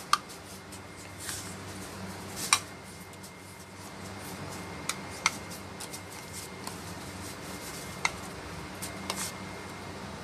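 Scattered light clicks and taps of a measuring cup against a ceramic bowl while cornstarch is scooped and measured, about half a dozen over several seconds, over a steady low background hum.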